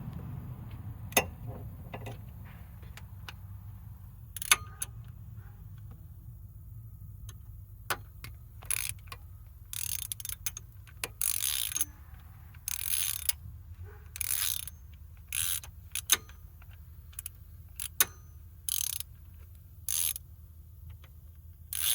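Ratchet wrench working a bolt on a timing belt tensioner: scattered clicks and knocks of tools on metal at first, then from about eight seconds in, repeated short bursts of ratchet clicking, roughly one stroke every second and a half.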